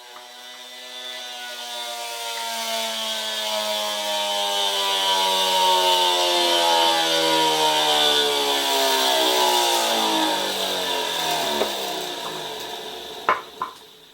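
Treadmill-motor-driven sewing machine rig coasting down after losing drive: a whine falls slowly and steadily in pitch, swells, then fades, with a couple of sharp knocks near the end. The sewing machine has locked up from bearing failure, leaving the pulley loose on its shaft.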